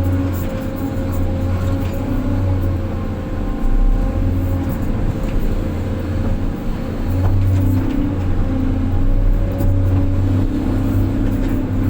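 Heavy diesel engine running steadily with a low droning hum, its loudness swelling and easing a few times.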